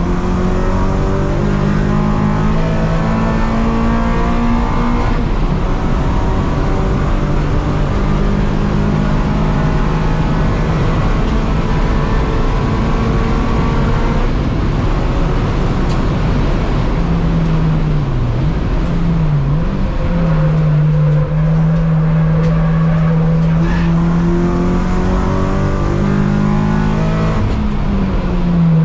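Honda K24 four-cylinder engine of an Accord Euro race car heard from inside the cabin, running hard at high revs at racing pace. Its pitch holds mostly steady, with a few quick sharp drops and recoveries about two-thirds of the way through and a falling pitch near the end.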